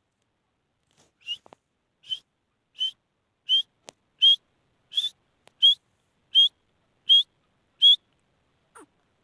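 Grey francolin (teetar) calling: a series of about ten short, high, whistled notes evenly spaced, each a little louder than the last. Near the end come a couple of fainter, lower notes that fall in pitch.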